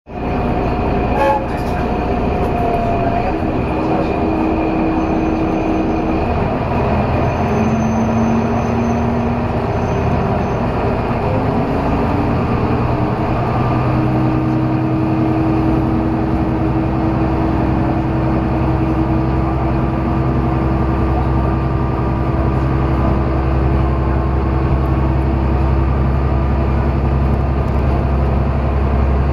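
Diesel railbus heard from inside the passenger cabin, engine running under load with a low rumble and a tone that climbs slowly as the car pulls away from a station platform and gathers speed.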